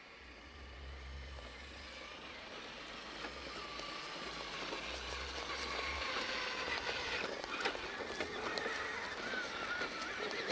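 Electric motors and gear trains of 1/10-scale Element RC Enduro trail trucks whining as they crawl over rock. The whine wavers with the throttle, with small clicks of tyres and chassis on the rock, and grows louder as the trucks come closer.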